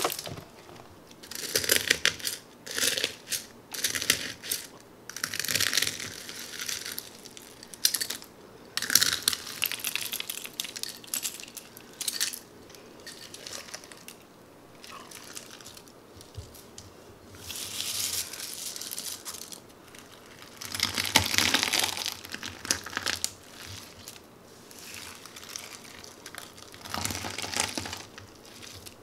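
Fluffy white slime mixed with frosted cornflakes being squeezed, kneaded and pressed by hand, the flakes crunching in irregular bursts with short quiet gaps between.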